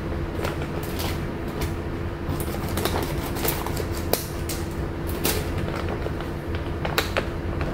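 A steady low hum with scattered small clicks and crackles over it.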